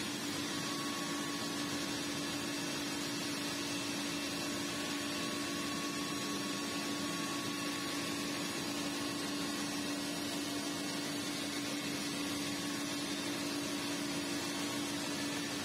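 Steady machinery hum in a stone-working factory: an even noise with a constant low-pitched tone underneath, unchanging throughout.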